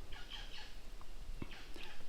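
Faint bird calls, short sweeping notes heard twice, with a soft thump about one and a half seconds in.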